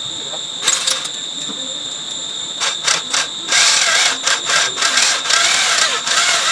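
Handheld electric drill driven against a metal part, triggered in short bursts and then held on for the last few seconds, its pitch wavering.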